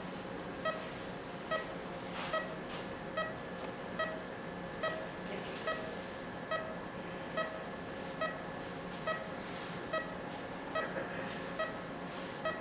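Surgical patient monitor beeping with the pulse: one short pitched tone a little under once a second, about 70 a minute, over a steady equipment hum.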